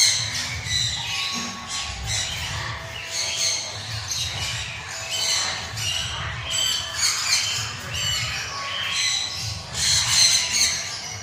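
Citron-crested cockatoo squawking over and over, a string of harsh calls about one to two a second.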